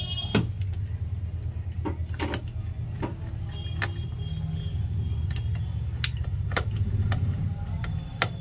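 Irregular small metal clicks and taps from a screwdriver and a copper heatsink being handled on a laptop motherboard, over a steady low hum.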